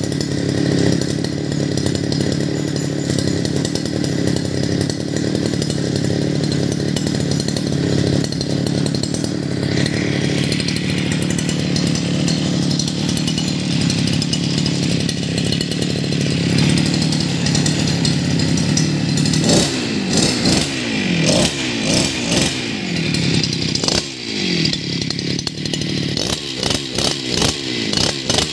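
Sun-Max 52cc two-stroke brush cutter engine idling steadily, then, from about twenty seconds in, revved in a run of short throttle blips, each one sliding back down toward idle.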